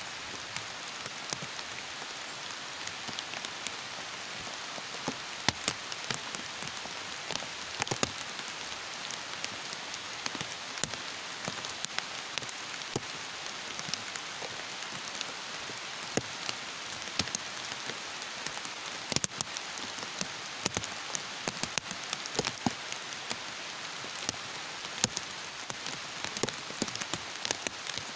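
Heavy rain falling steadily, with frequent sharp drops striking close by.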